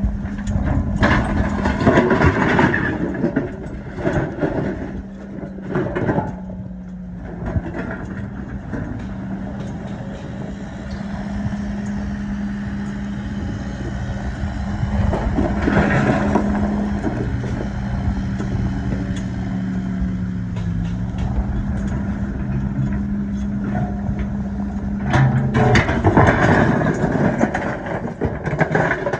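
An engine running steadily, with several louder, noisier stretches.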